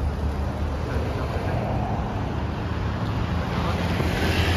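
Steady low rumble of road traffic, with a short hiss near the end.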